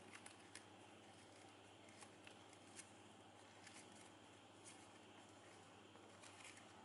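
Near silence, broken by faint, scattered crinkles and ticks of shiny ribbon being tugged and adjusted by hand.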